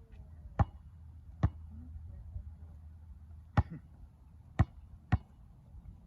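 Five sharp single thuds or knocks at uneven intervals, each short and cleanly separated, over a low background rumble.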